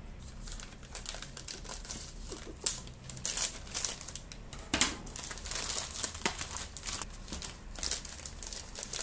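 Plastic courier mailer bag crinkling and rustling in irregular bursts as it is cut open with scissors and pulled apart, with one sharp snap about a third of the way in.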